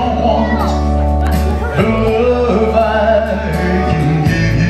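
Slow country ballad, with a man's voice singing into a microphone over steady backing music.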